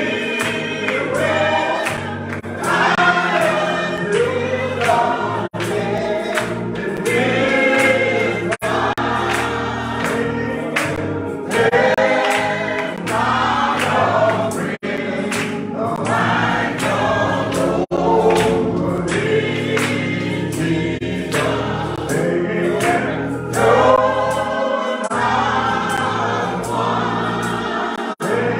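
Gospel singing by a small group of men and women, a man leading into a hand-held microphone, over steady low held backing notes.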